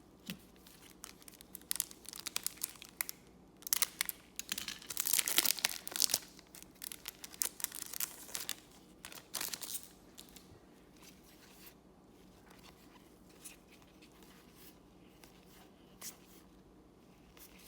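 Plastic wrapper of a trading card pack being torn open and crinkled, in crackly bursts through the first half, loudest about five seconds in, then a few scattered clicks.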